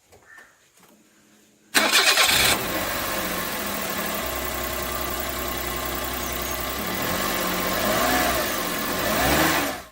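Suzuki Alto's three-cylinder petrol engine being started about two seconds in, catching quickly and settling into a steady idle: the test start after new spark plugs are fitted. There are two light blips of revs near the end before the sound cuts off suddenly.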